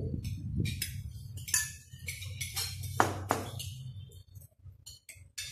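Metal spoons and forks clinking and scraping against a glass serving bowl and plates, a quick run of light taps with two louder clinks about three seconds in.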